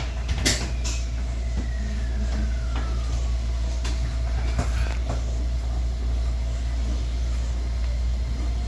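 Running noise of a 125-series electric railcar heard from the cab: a steady low hum, with an electric motor whine gliding down in pitch over the first few seconds and a few scattered knocks.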